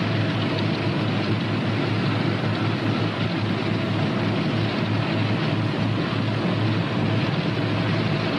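The P-61's two Pratt & Whitney R-2800 radial engines running steadily during warm-up after start, an even drone with a strong low hum.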